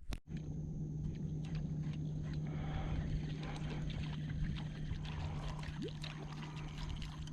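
Kayak moving on calm water with a steady hum, a low tone with a faint high whine above it, and scattered small ticks and splashes.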